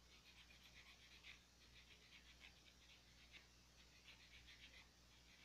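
Faint, quick back-and-forth rasping of a nail file on acrylic nails, in short repeated strokes.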